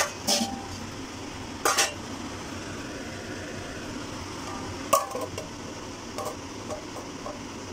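Metal clinks and clatter as a steel plate is set as a lid on a metal cooking pot, the loudest sharp clank about five seconds in, followed by a few lighter taps, over a steady hiss. The pot is being covered so the rice can steam on a low flame.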